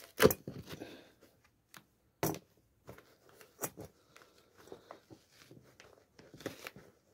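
A broken, crumbling sneaker heel counter crackling and tearing as it is pried and pulled out of the heel. Irregular sharp snaps come through, the loudest about a quarter second in and again about two seconds in.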